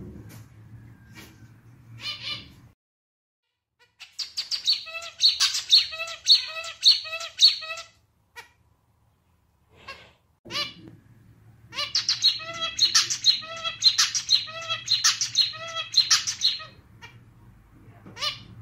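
Male zebra finch singing its song in a clarinet-like style: two bouts of a rhythmic run of repeated notes, each a few seconds long, with single short calls before and between them.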